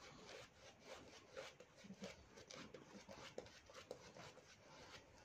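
Faint wet rubbing and squishing of a shaving brush working watered-down shaving soap lather over the face in quick irregular strokes.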